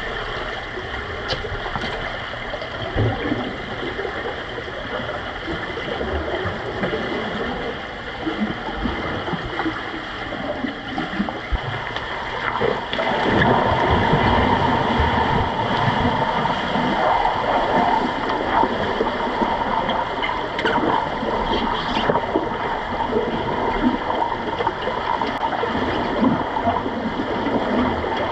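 Pool water heard through an underwater microphone as underwater rugby players in fins swim and scramble around the goal: continuous bubbling and gurgling with a few sharp clicks, louder from about 13 seconds in.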